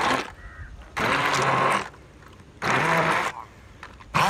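Handheld immersion blender running in short pulses of under a second, three times, grinding roasted red capsicums to a paste in a stainless steel bowl.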